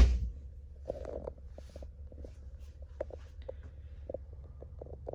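A sharp knock right at the start, then faint scattered clicks and taps over a steady low rumble.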